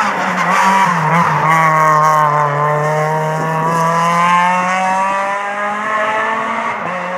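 Rally car engine running hard at high revs as the car approaches and takes a hairpin. The pitch dips briefly about a second in, then holds high and sags slowly through the corner, and the sound fades a little near the end as the car moves away.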